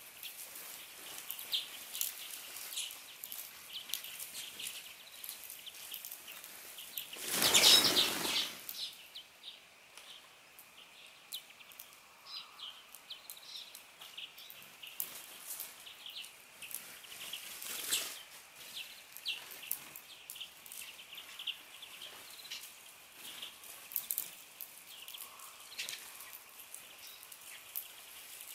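Small birds at a garden feeder, giving many short, high chirps and clicks throughout. About seven seconds in comes a loud rush of wingbeats, about a second long, as a flock flushes off together.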